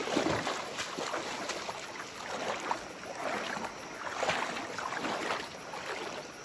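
Irregular footsteps and splashing over wet stones in a shallow rocky river, over the steady rush of the river.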